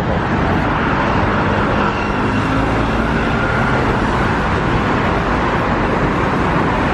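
Steady road traffic: cars driving along a busy city street, a continuous even rush of engine and tyre noise.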